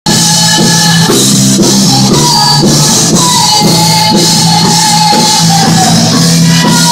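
Loud band music with a steady beat of about two beats a second and a sustained melodic line over a held bass.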